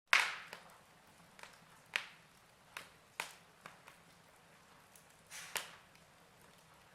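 Fire crackling: sharp, irregular pops and snaps, about one a second, over a faint hiss, starting abruptly with the loudest crack.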